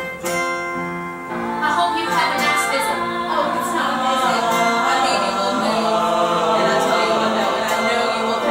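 Musical-theatre ensemble singing together with acoustic guitar accompaniment. A chord rings at the start and the voices come in about a second later.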